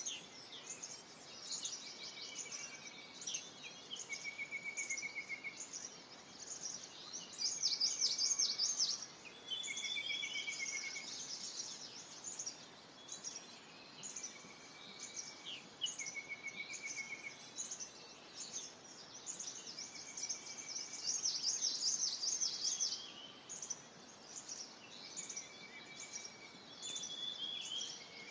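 Several birds calling together in a steady chorus of high chirps and quick down-sweeping notes. A short buzzy trill comes in again and again, every second or few, and the chirping gets louder twice, about eight seconds in and again past twenty seconds.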